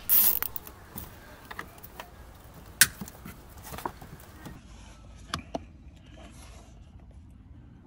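Cables and plastic interior trim being handled: a burst of rustling at the start, then scattered clicks, the sharpest about three seconds in and two more about five and a half seconds in.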